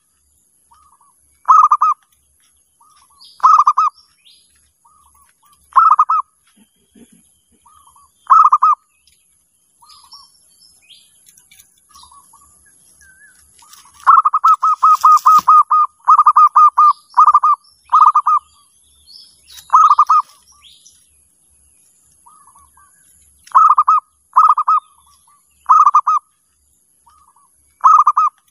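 Zebra dove (perkutut) calling song: short, staccato coo notes repeated every second or two, with a faster run of notes about halfway through. Faint higher chirps and a faint steady high hiss sit behind it.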